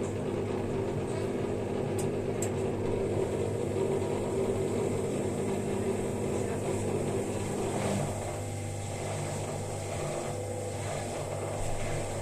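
Indesit IWSD 5105 washing machine running mid-cycle: a steady motor hum that changes and drops a little about eight seconds in, with a few faint ticks near the start.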